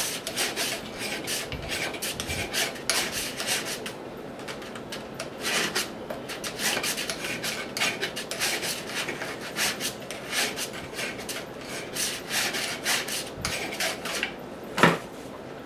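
Hand file rasping back and forth across a steel stepper motor shaft clamped in a vise, cutting a flat for a pulley set screw to bite on; about three strokes a second, with a brief lull about four seconds in. A single sharp knock near the end is the loudest sound.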